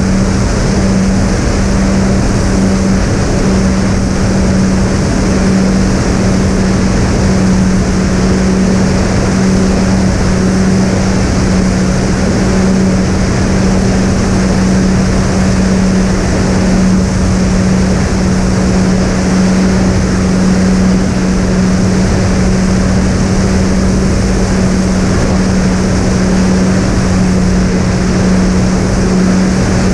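Twin brushless electric motors on an RC fixed-wing plane (Sunnysky 2212 980 kV with three-blade 7x4 props) droning at a steady cruise setting, with a constant low hum over the rush of wind.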